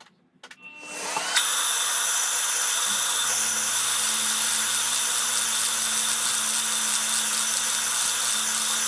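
Vacuum cleaner, its hose in the spark plug hole to catch chips, spinning up about half a second in and then running steadily. From about three seconds in, an electric drill hums underneath it as it turns a valve relief cutter into a piston crown.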